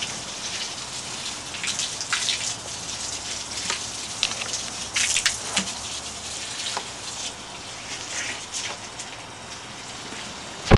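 Water from a garden hose running and splashing onto the ground: a steady hiss dotted with short, sharp splats.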